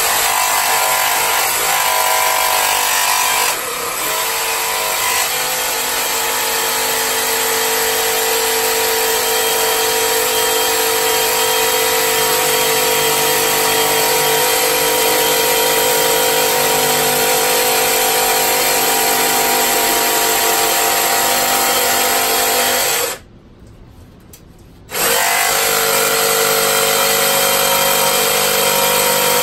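Jigsaw running and cutting a lengthwise slot through white PVC pipe, with a steady buzzing of the blade. It stops for about two seconds near the end, then starts cutting again.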